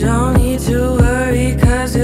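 Background pop/R&B song with a steady beat of about three strikes a second; a singing voice comes in right at the start.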